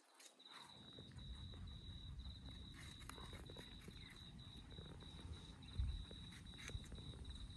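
Two rabbits nibbling an apple core held in a hand, with faint crunching clicks from their bites, against a steady high insect trill. A low rumble rises briefly about six seconds in.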